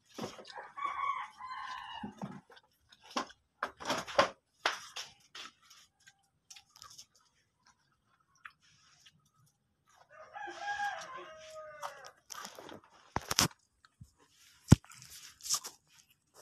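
A rooster crowing twice, each crow about two seconds long, near the start and again about ten seconds in, the second ending on a falling note. Scattered sharp clicks and knocks fall between the crows, the loudest a single click near the end.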